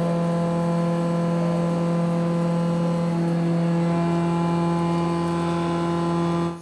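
WIDIA Victory Shoulder Mill 11, a 25 mm four-insert indexable shoulder mill at 2547 rpm, milling 42CrMo4 (4140) alloy steel: a steady pitched hum with overtones at the inserts' tooth-passing rate.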